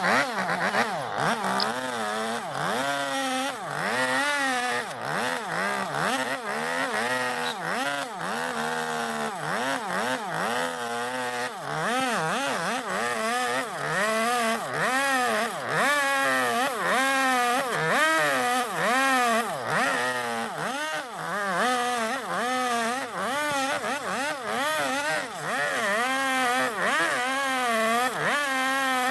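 Two-stroke engine chainsaw cutting into a zelkova block to hollow a bowl. The engine's pitch repeatedly sags and recovers as the chain bites into the wood and comes free.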